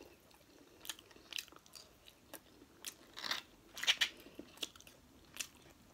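Close-up eating sounds of a person chewing avocado and sushi: quiet chewing with about ten short, wet mouth clicks and smacks scattered through it.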